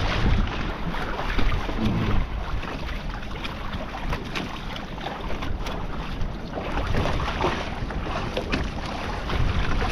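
Wind buffeting the microphone and choppy water sloshing and slapping around a kayak as it moves through rough sea, with occasional knocks.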